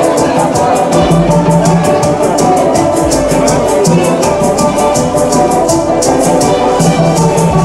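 Live percussion music from hand drums and a shaker: a fast, even shaker rhythm of about six strokes a second over deep drum beats.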